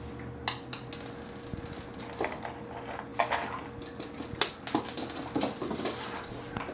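Boston terrier's claws clicking and tapping on a hardwood floor as she trots about, in an irregular run of sharp clicks.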